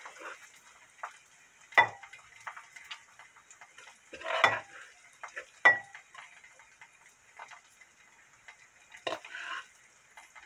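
Kitchen utensil and frying pan knocking and scraping as kimchi fried rice is scooped out of the pan onto a plate: four louder knocks, about two, four and a half, nearly six and nine seconds in, with lighter ticks and scrapes between.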